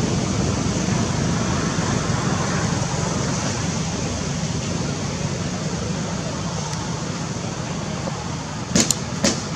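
Steady rushing noise of nearby road traffic, with a few sharp clicks near the end.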